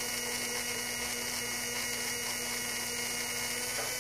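Small DC fan motor under Arduino speed control, running steadily at about 55% speed with a steady hum and whine.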